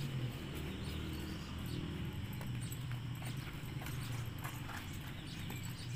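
Hooves of a horse cantering on soft dirt, a run of dull thuds, over a low steady hum.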